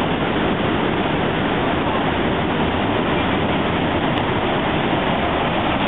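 Rushing water of a flood-swollen river running through rapids: a steady, loud, even rush with no letup.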